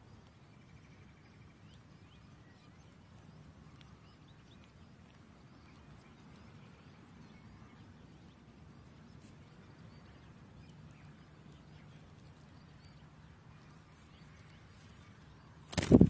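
Faint, thin chirps of common linnet nestlings begging while a parent feeds them at the nest. Just before the end, a single loud thump.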